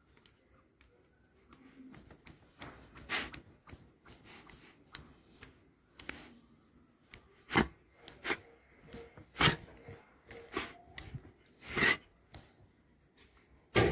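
A Doberman snapping its jaws, its teeth clacking shut in a series of irregular sharp clacks, the loudest few in the second half.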